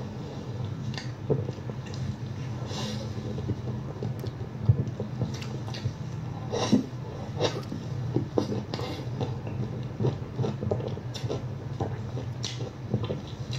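A person chewing and eating food: irregular short clicks and smacks of the mouth over a steady low hum.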